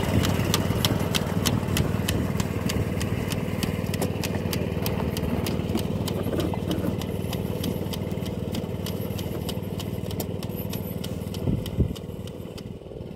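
Walk-behind rice transplanter's small engine running steadily, with a regular ticking about three times a second, growing fainter as the machine moves away. A single knock near the end.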